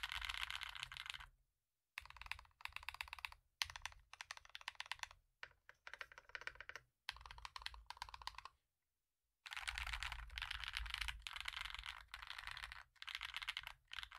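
Typing on an NK65 Aluminum V2 mechanical keyboard with lubed NK_ Cream linear switches, an aluminum plate and doubleshot PBT keycaps. Fast runs of keystrokes come in bursts of one to three seconds, with short pauses between them and a longer pause about nine seconds in.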